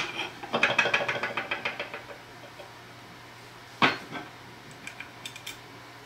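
Small metal screws clinking and rattling quickly for about a second and a half as they are handled and set into the holes of a metal filter wheel, then one sharp click near four seconds in and a few faint ticks.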